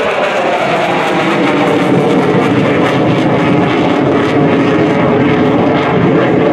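F/A-18E/F Super Hornet's twin General Electric F414 turbofan engines running loud and steady as the jet pulls a hard banking turn overhead.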